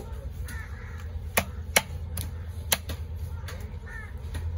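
Heavy fish-cutting knife chopping trevally into chunks on a wooden log block: several sharp knocks at uneven intervals, the loudest in the middle. Crows caw briefly twice in between.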